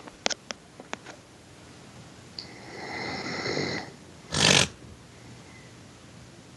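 A sleeping person snoring: a long in-breath with a thin whistling tone about two and a half seconds in, then a short, loud snort about a second later. A few faint clicks in the first second.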